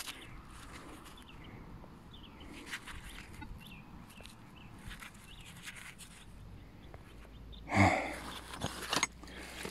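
Quiet outdoor background with small birds chirping faintly and a few light knocks. Near the end comes one short, loud call that falls in pitch.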